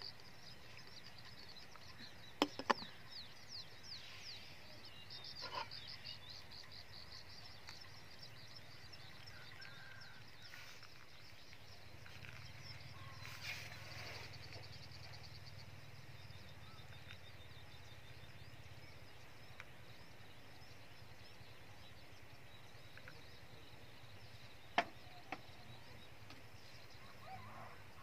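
Faint outdoor ambience of rapid, high-pitched chirping trills, strongest in the first half, with a few sharp clicks and taps of coffee-making gear being handled about two seconds in and near the end.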